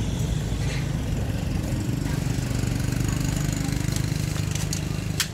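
An engine running steadily, a little louder in the middle, with a sharp click near the end.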